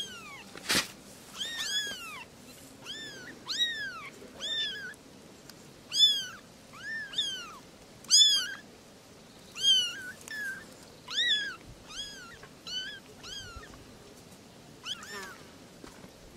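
Young kittens meowing over and over: high-pitched mews that rise and fall, about one or two a second, tailing off near the end. A brief sharp knock sounds about a second in.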